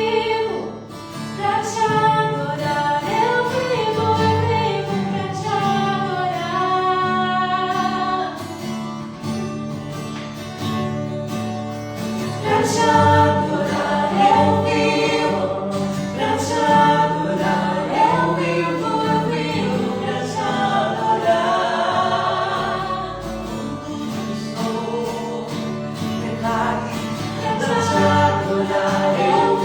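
Christian worship music: several voices singing a slow melody together over a band with sustained bass notes.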